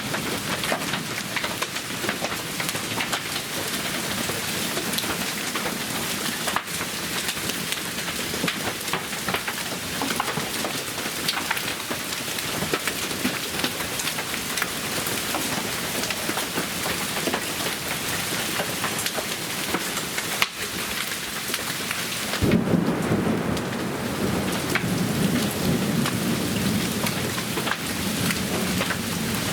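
Storm downpour, rain with hail, pelting steadily on surfaces in a dense stream of small hits. About 22 seconds in, a deeper, louder rumble joins in and carries on.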